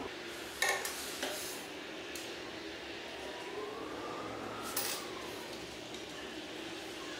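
A few light clicks and taps from hand work with a needle and thread on a wooden workbench: one about half a second in, another soon after, and a third near five seconds in, over a faint steady hiss.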